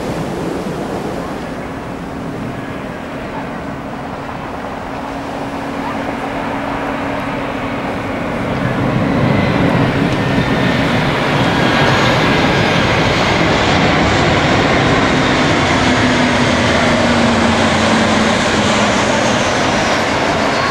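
A Boeing 737's CFM56 turbofan engines heard as the airliner flies low on approach to land with its gear down. The jet noise swells about eight seconds in as the aircraft draws nearer and then stays loud, with a faint high whine sliding down in pitch near the end.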